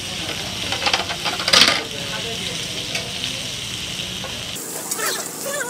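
Fish pieces sizzling in hot oil on a large flat griddle, with metal tongs scraping and clacking on the pan about a second in. The sizzle cuts off suddenly near the end.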